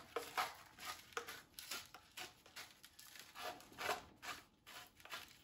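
Hand-twisted salt grinder grinding salt, a run of short gritty crunches, two or three a second.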